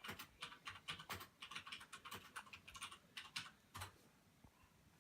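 Rapid keyboard typing: a quick run of clicking keystrokes that stops just before four seconds in.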